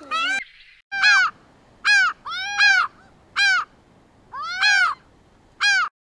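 Indian peafowl (peacock) calling: a series of loud, short, harsh honking calls, each rising then falling in pitch, repeated about eight times at uneven intervals.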